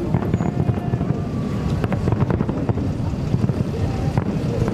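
Fireworks display: a dense low rumble of bursting shells with many sharp bangs and crackles running through it, and wind on the microphone.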